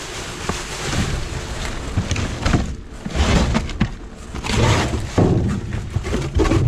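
Rummaging through trash inside a dumpster: rustling and scraping, with repeated dull thumps and knocks as items are shifted about.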